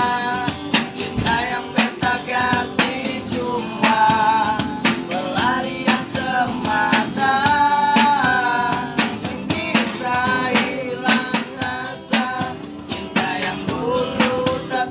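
A busker's song: a singing voice over guitar and a steady drum beat.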